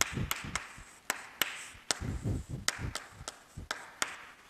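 Chalk writing on a chalkboard: about a dozen sharp irregular taps as strokes begin, with soft scraping between them.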